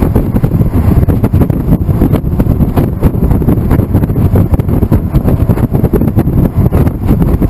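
Heavy wind buffeting on the microphone inside an open-top Honda S2000 roadster driven at highway speed, a loud, constantly fluctuating low rumble mixed with the car's road and engine noise.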